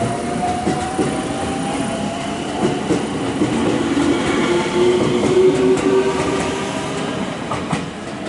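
JR West electric multiple-unit train pulling away from the station, its traction motors whining in a tone that rises slowly as it picks up speed. The wheels click over the rail joints.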